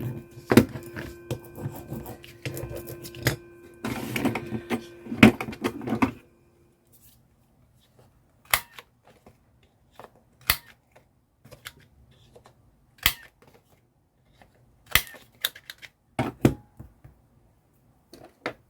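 Sewing machine stitching through paper, a fast run of needle clicks over the motor's steady hum, which stops abruptly about six seconds in. After that come scattered sharp clicks and taps of paper and tools being handled.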